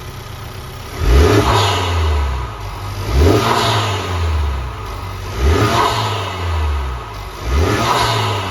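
Honda Civic Type R's turbocharged 2.0-litre four-cylinder, fitted with the stock intake box and PRL tubing, idling and then revved in four quick throttle blips about two seconds apart, each rising and falling back, heard with the hood open.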